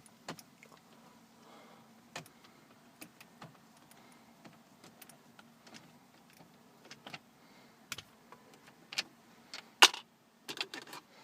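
Scattered small clicks and taps of a screwdriver and small screws against car dashboard plastic while the screws are being removed, with a few louder sharp clicks near the end.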